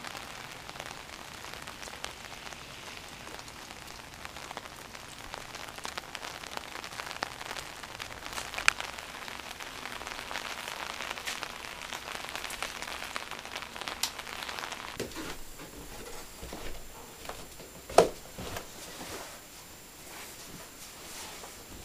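Steady rain falling, an even hiss with a few light ticks. About two-thirds of the way through it drops to a quieter background, broken by one sharp knock.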